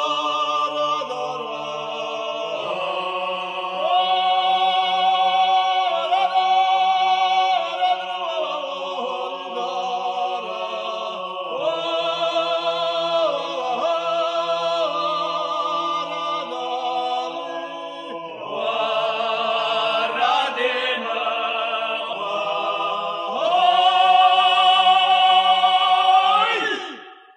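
Abkhazian folk song: voices singing long, held, rising and falling phrases over a steady low drone. The song closes on a loud held final phrase that stops shortly before the end.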